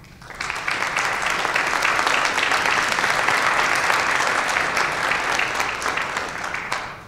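Audience applauding, starting about half a second in and cutting off near the end.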